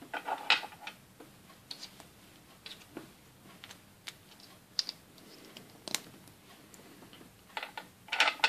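Small hard-plastic Playmobil pieces clicking and tapping as fingers handle them and press them onto a plastic toy sofa. There are scattered light clicks, with a quick cluster near the end.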